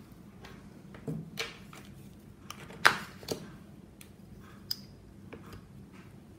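A few light knocks and clicks of small nail-stamping tools being handled on a tabletop: a metal stamping plate, a scraper card and a silicone stamper picked up and set down. The sharpest knock comes about three seconds in.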